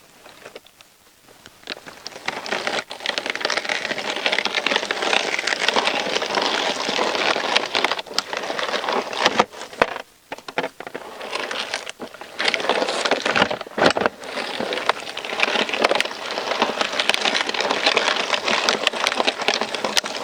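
Hand-cranked Ridge Monkey boilie crusher grinding bait, its blades turning and crunching through the contents. It is a dense crackling crunch that starts about two seconds in, with a few short breaks near the middle as the handle stops.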